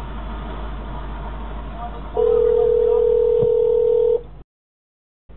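Telephone ringback tone heard over a phone line: a hiss on the line, then one steady ring tone lasting about two seconds from about two seconds in. This is an outgoing call ringing through before it is answered.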